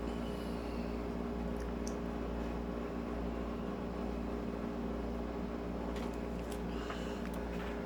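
Frigidaire tent air conditioner running steadily, its compressor and fan giving an even hum. A few faint ticks sound near the end.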